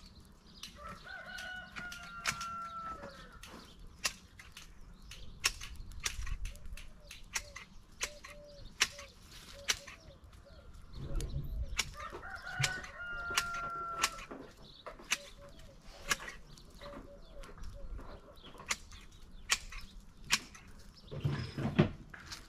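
A rooster crowing twice, each crow about two seconds long, with hens clucking softly in between. Frequent sharp clicks and cracks run throughout.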